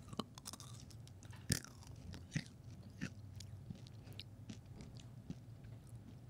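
About half a dozen Nerds candies being chewed close to a microphone: faint, scattered small crunches and clicks, about ten over several seconds.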